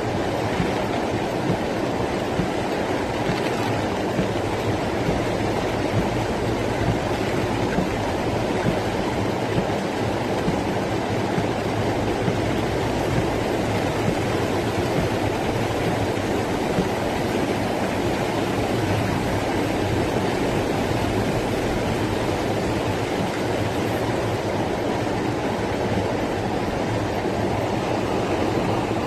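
Storm rainwater rushing in a steady, unbroken torrent.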